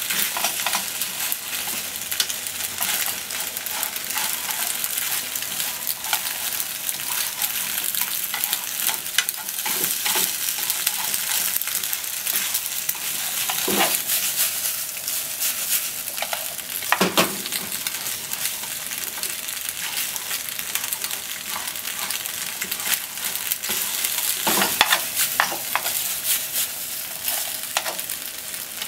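Macaroni with onion, corn and meat sizzling in oil in a frying pan as it is stirred and turned with chopsticks: a steady sizzle with constant small scrapes and clicks, and a few louder knocks now and then.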